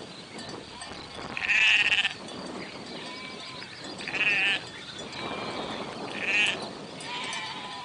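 Sheep bleating: three loud, wavering bleats about two seconds apart, with fainter bleats from the flock between them.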